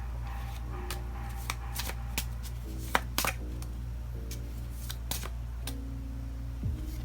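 Oracle cards being shuffled and drawn by hand, a scatter of sharp card snaps and rustles, the loudest about three seconds in, over soft background music with a steady bass line.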